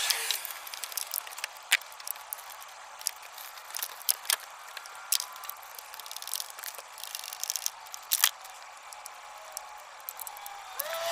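Scattered sharp metallic clicks and clinks of a socket wrench and extension being worked on engine bolts, with a short run of rapid clicks about seven seconds in.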